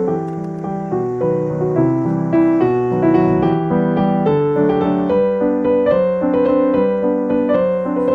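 Background piano music: a steady run of light piano notes.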